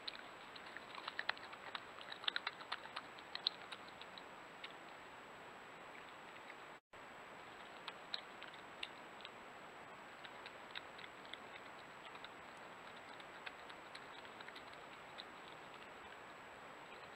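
European badger foraging right by a trail camera: scattered crisp clicks and crackles as it noses and scrabbles through bark chips and gravel, busiest in the first few seconds and sparser after a brief break, over the camera's steady hiss.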